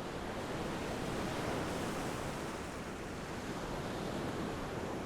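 Surf washing on a beach: a steady rush of waves that swells gently and eases off.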